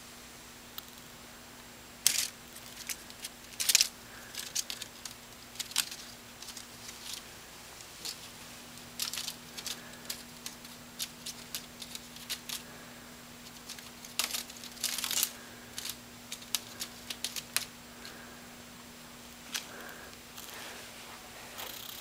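A kitten's claws scratching and scrabbling at a wicker basket: irregular short scratches and crackles, some coming in quick flurries.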